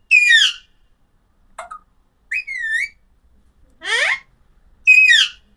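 A parrot giving five separate loud whistled calls about a second apart, each gliding in pitch, some falling and some rising, with one wavering up and down.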